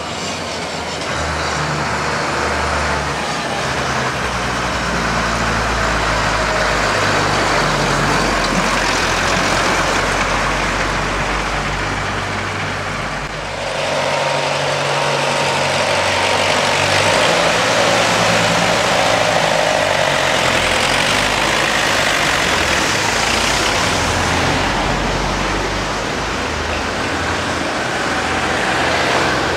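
Classic tractor engines running as tractors drive past one after another, mixed with other road traffic. The sound changes abruptly about halfway through.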